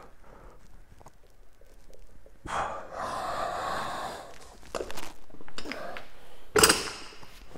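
A man exhaling hard for about two seconds while lifting a pair of dumbbells in a chest fly. About a second and a half later comes a loud thud as he sets the dumbbells down on the rubber gym floor.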